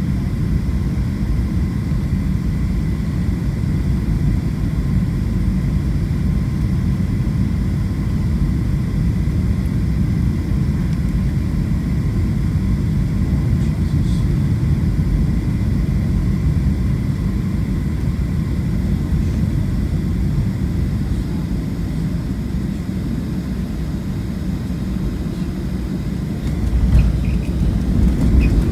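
Cabin noise inside a Boeing 737 on final approach: a steady low rumble with a faint steady whine. Near the end the rumble jumps louder as the main wheels touch down on the runway.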